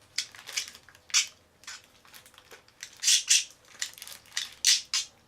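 Pet budgie crunching and pecking at food close by, as a run of irregular crackly crunches, loudest about three seconds in and again near the end.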